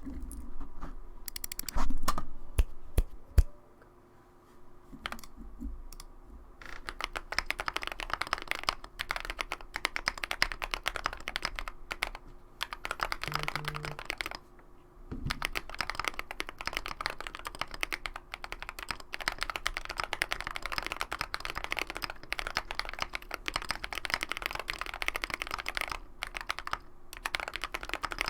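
Typing on a mechanical keyboard with lubed Holy Panda tactile switches (Krytox 205g0, filmed) in a foamed KBD75 case with an aluminium plate. A few louder knocks in the first few seconds, then fast steady typing from about a quarter of the way in, broken by brief pauses.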